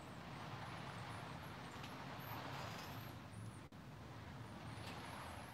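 HO scale model trains running on the layout's track: a faint, steady rumble of wheels on rail with thin high squeaks. The sound cuts out for an instant near the middle.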